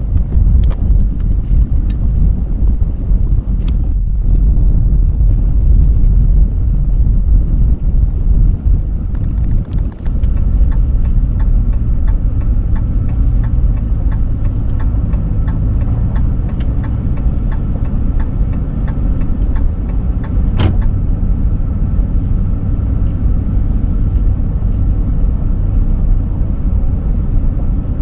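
Vehicle driving on the road, with a steady low engine and road rumble. Light regular ticking runs for several seconds in the middle.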